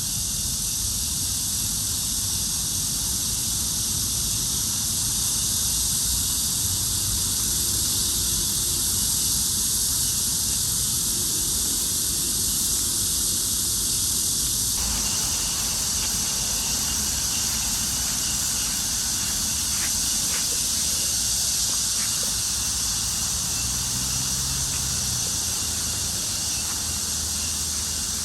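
Steady high outdoor hiss with a low rumble under it. The tone changes abruptly about halfway through.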